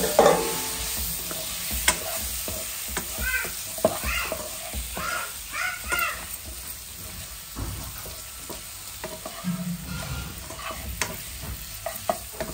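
Chicken pieces dropping into a hot pan of fried onions and spices, landing loudly at the start, then sizzling as a spatula stirs and scrapes them around the nonstick pan. There are a few short squeaks near the middle.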